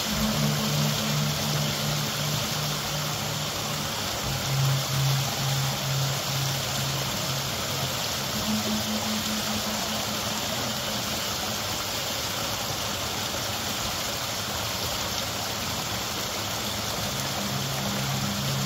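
Water pouring steadily from a row of stone spouts into a bathing pool, a constant rushing splash. Low held notes of background music come and go over it.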